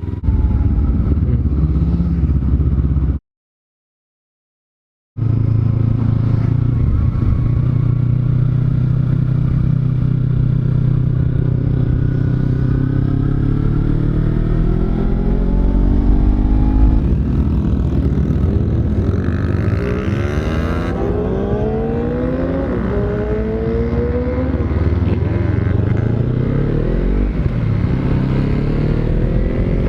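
Kawasaki Z300 parallel-twin motorcycle engine under way. It holds a steady drone, then climbs and drops in pitch again and again as it accelerates through the gears. The sound cuts out completely for about two seconds near the start.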